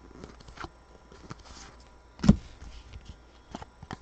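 Trading cards and packs being handled on a table: light scattered clicks and taps, with one louder knock about two seconds in.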